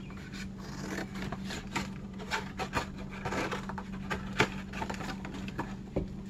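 Scissors cutting through the thin cardboard of a cereal box, with irregular snips and the cardboard scraping and crinkling as it is handled.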